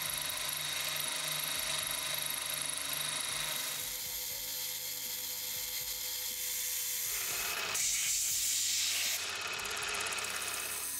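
Milling machine running with an end mill cutting steel as it roughs out a large bored hole: a steady machine whine and cutting hiss, growing harsher and louder for about a second and a half near the end.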